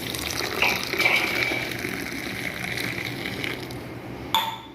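Water gushing steadily, as from a tap or pipe filling a container, with a faint steady whistle in the flow; it cuts off abruptly near the end.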